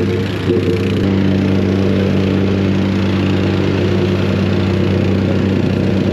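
Engine of paving equipment running steadily at a constant speed.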